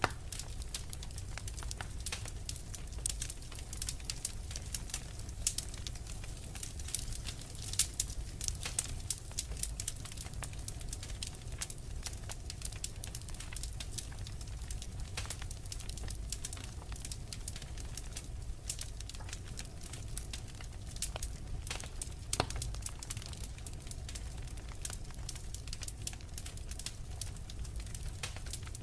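Wood fire crackling, with frequent sharp pops over a low, steady rumble; a few pops stand out louder than the rest.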